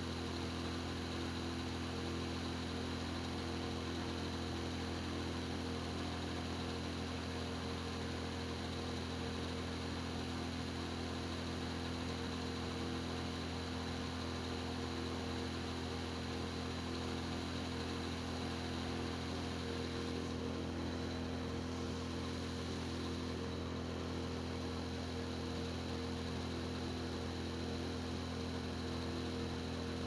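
Steady low electrical hum with several fixed higher tones over it, unchanging throughout.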